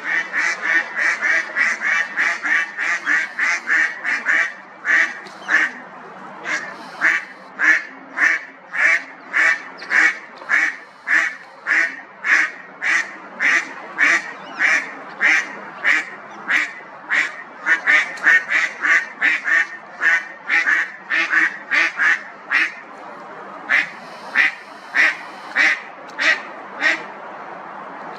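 Mallard ducks quacking in a long, rapid series of short calls, about two or three a second, with brief pauses, stopping shortly before the end.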